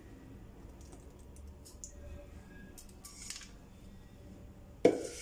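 Soft handling clicks, then about five seconds in a single sharp knock of kitchenware set down on a hard surface.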